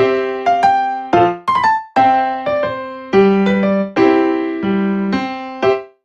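Background piano music: a light melody of struck notes and chords, each note fading after it is played.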